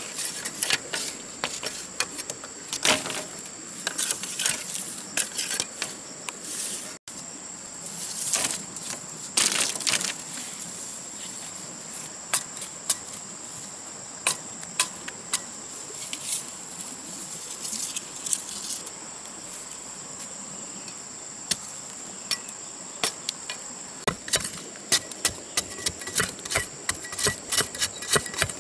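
Curved machete cutting and trimming bamboo strips: repeated sharp chops and knocks, coming in a quick run near the end, over a steady high insect drone.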